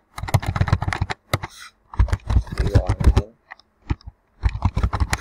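Typing on a computer keyboard: rapid keystroke clicks in three quick bursts with short pauses between them.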